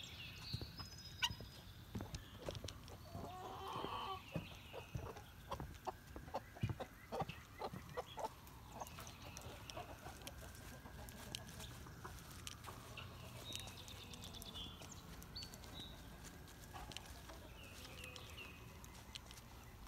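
Faint sirens wailing, slowly rising and falling in pitch, through the second half. In the first half a run of short sharp clicks sounds, with a few brief high chirps scattered throughout.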